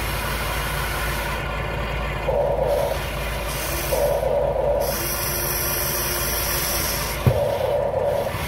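Top Race TR211M all-metal electric RC excavator running: a steady mechanical hum with three short, louder whirring bursts about two, four and seven and a half seconds in, and a sharp click just before the last one.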